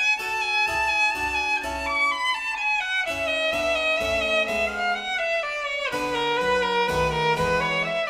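Background music led by violin over a steady beat, a melody of held and stepping notes.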